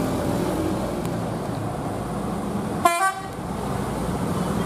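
Mercedes-Benz OH 1526 coach engine running steadily as the bus passes close by, with one short horn toot about three seconds in, a greeting from the driver to the roadside spotters.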